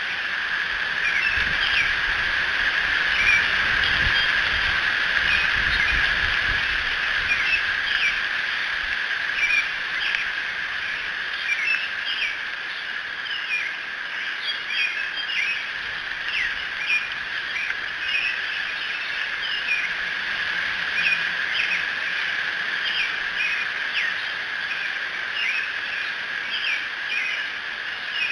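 Chorus of small songbirds chirping in quick short notes over a steady high drone, with a low rumble of distant thunder through the first several seconds.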